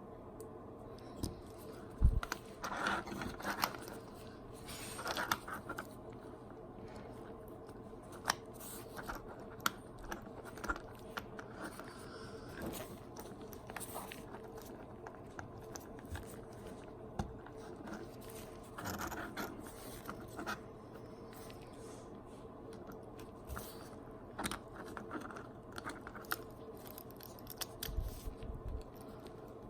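Small 3D-printed PLA parts of a micro crawler clicking and scraping as they are handled and taken apart, in scattered bursts over a faint steady hum.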